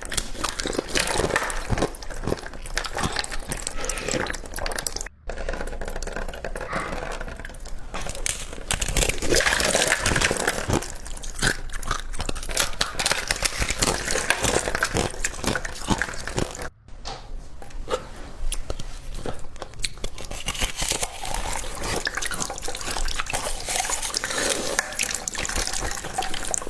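Hard ice being bitten and crunched up close: dense, wet crackling and cracking. It breaks off twice, briefly, about 5 and 17 seconds in.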